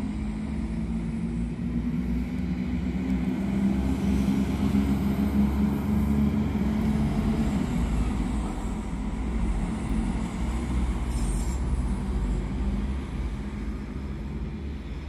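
Two coupled Regio-Shuttle RS1 diesel railcars passing at moderate distance. The engines hum and the wheels rumble on the rails, swelling in the middle of the pass and easing toward the end. There is a brief high squeak about eleven seconds in.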